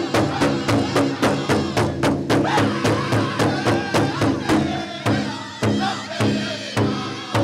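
Pow wow drum group singing a chicken dance song: a big drum struck in a fast, even beat of about four strokes a second under high, wavering voices. About five seconds in, the beat slows to roughly two strokes a second.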